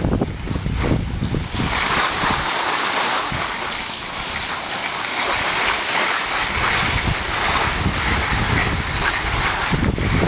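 Wind buffeting the microphone of a skier going downhill at speed, over a steady hiss of skis running on snow. The low rumble of the wind eases for a few seconds in the middle, leaving mostly the hiss.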